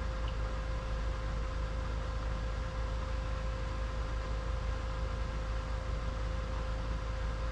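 Pressure washer running steadily: a constant low rumble and even hiss with a fixed machine hum.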